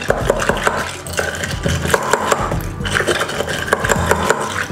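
Long bar spoon churning crushed ice, mint and lime up and down in a tall mojito glass, with many small clinks and crunches of ice against the glass.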